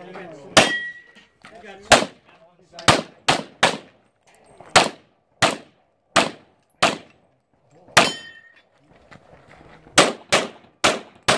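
Semi-automatic competition pistol fired about fourteen times in an uneven string: quick runs of two or three shots, then pauses of a second or two as the shooter moves between targets. Two of the shots are followed by a brief ringing tone.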